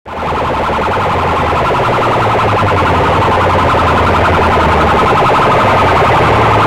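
Stacks of aluminium horn loudspeakers blaring at full volume, a harsh, distorted, midrange-heavy sound with a steady low hum beneath, from two rival rigs played against each other in a sound-box competition.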